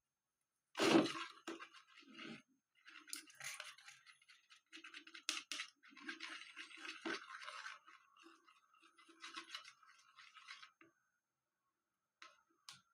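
Glue slime being stirred with its detergent activator in a container, a utensil scraping and clicking irregularly against the sides as the mixture thickens.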